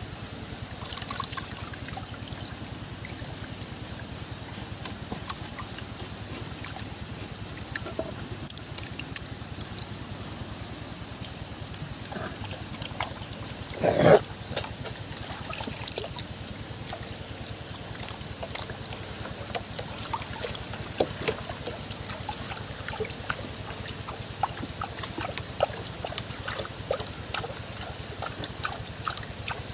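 Water trickling and sloshing, with many small scattered clicks and knocks and one louder knock about fourteen seconds in.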